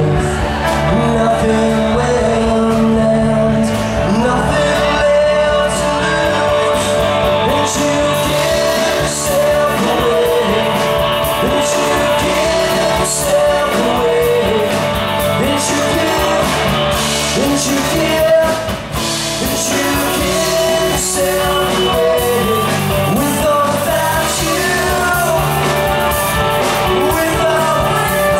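Live rock band playing: electric and acoustic guitars and a drum kit with cymbals, with a male lead singer singing over them.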